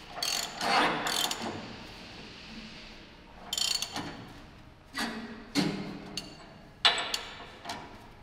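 Irregular metallic rattling and clinking from a hand chain hoist's chain and ratchet, with half a dozen sharp clinks, as the steel armour plate hanging from it is worked into position.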